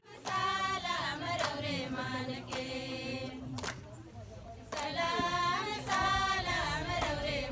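A group of women singing a song together. The singing pauses briefly about four seconds in, then starts again.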